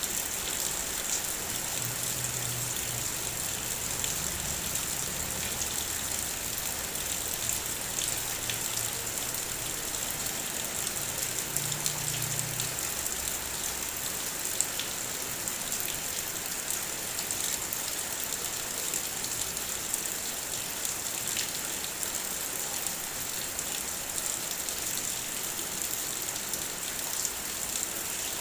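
Heavy rain falling on a car, heard from inside: a steady hiss with many small raindrop taps on the vehicle's surface. A faint low hum runs under it for several seconds near the start.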